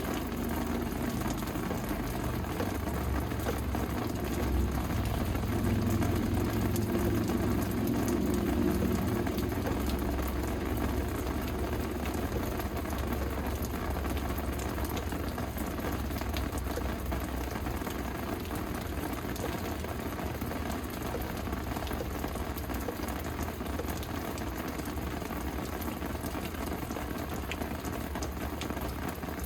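Steady rain falling, an even hiss throughout. A low rumble swells about four seconds in and fades by about ten seconds.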